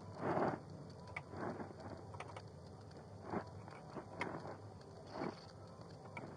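Body-worn camera's microphone rubbing and knocking against the wearer's clothing as he moves: a series of irregular rustling swishes about once a second, with a few small clicks.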